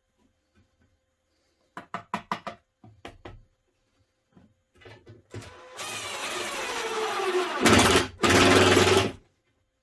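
Makita cordless impact driver driving screws into furniture board. About two seconds in come a few quick trigger blips. Then comes a long run whose motor note falls as the screw bites, ending in two loud hammering bursts near the end.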